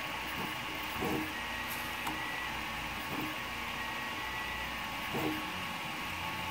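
Prusa i3 MK2S 3D printer printing: a steady whir of its cooling fans, with the stepper motors humming short tones that change pitch as the print head moves. There are a few soft knocks, about 1, 3 and 5 seconds in.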